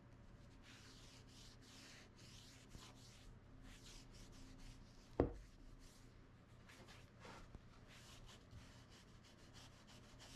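Faint, repeated strokes of a hand file rasping the wooden handle of an axe, shaping a grip, with one sharp knock about five seconds in.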